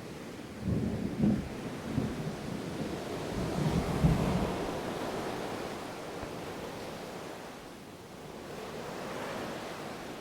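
Ocean surf washing in and out in slow swells, with a low rumble of distant thunder through the first few seconds.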